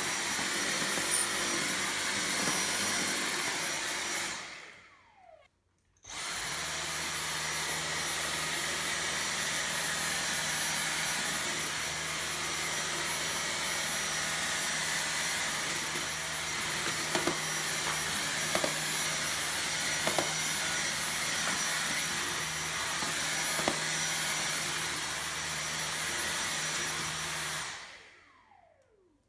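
Dyson V6 cordless stick vacuum running with a steady high whine, switched off about four seconds in and winding down with a falling tone, then started again abruptly a second or so later. It runs steadily with a few faint clicks and winds down again near the end.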